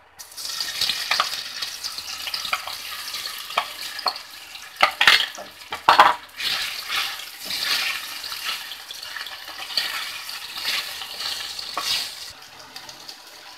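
Cornflour-coated soya chunks sizzling in hot oil in a metal frying pan from the moment they drop in, with a spoon knocking and scraping as they are spread and stirred. The loudest knocks come about five and six seconds in.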